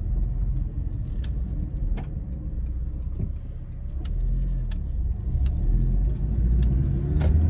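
Honda Integra Type R DC5's K20A four-cylinder VTEC engine, with a Mugen muffler, running as the car is driven, heard from inside the cabin as a steady low drone with scattered light clicks and ticks. It gets louder toward the end.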